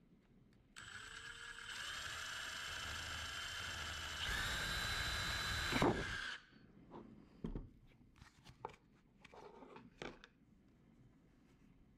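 Milwaukee M18 cordless drill running, a small twist bit boring through a thin plastic food container. The motor whine starts about a second in, steps up in loudness and pitch twice, and cuts off suddenly after about five seconds. A few light clicks and knocks follow as the plastic container is handled.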